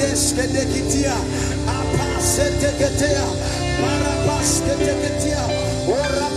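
Live worship band music: held chords over a steady bass, with a cymbal-like splash about every two seconds and voices gliding over it.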